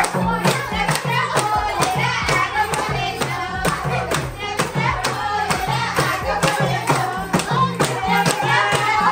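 Nepali Teej song with a fast, steady beat and singing.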